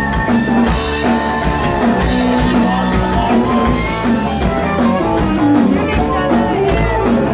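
Live country-rock band playing an instrumental break, with guitar over bass and drums keeping a steady beat.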